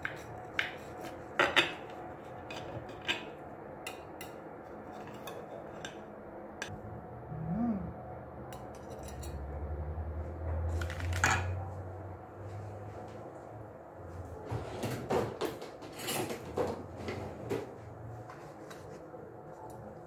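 Metal pie server cutting through a pie and scraping and clinking against a glass serving plate, in scattered clinks and scrapes with a cluster of them in the second half.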